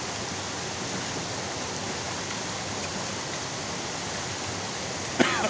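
Steady rush of a fast-flowing river, an even wash of water noise. A short burst of a person's voice cuts in near the end.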